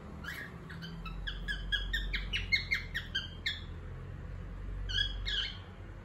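Cockatiel chirping: a quick run of short, clear whistled chirps, about five a second, for the first three and a half seconds, then two more chirps about five seconds in.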